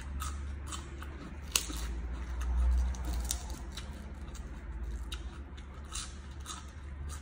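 Close-miked chewing of raw leafy greens wrapped around fish chili dip, with irregular sharp crunches and mouth clicks, over a steady low hum.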